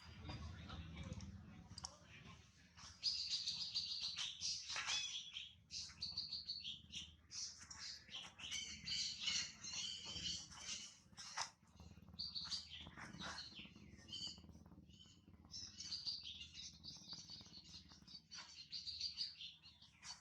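A young monkey's high-pitched chirping squeals and cries, many in quick succession.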